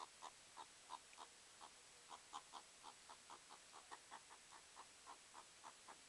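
Pet meerkat giving a steady run of short, faint chirping calls, about four a second, while playfighting.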